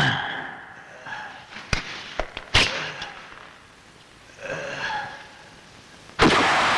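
A few sharp clicks and knocks in the first few seconds, then near the end a loud film sound-effect blast breaks out with dense, rumbling noise.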